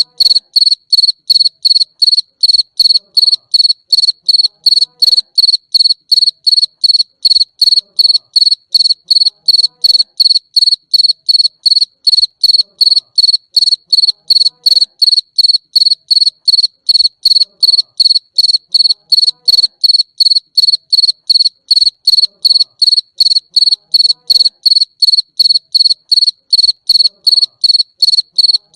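A cricket chirping continuously in rapid, evenly spaced high-pitched pulses, several a second, at a steady rate and loudness.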